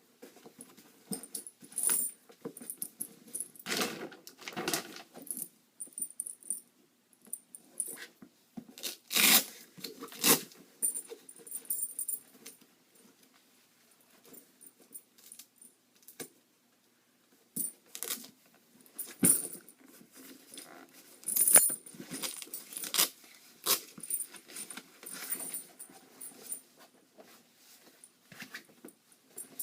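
Goalie leg pads being handled and flexed: irregular rustles, knocks and small metallic clinks from the straps and buckles, with a pause of a few seconds in the middle.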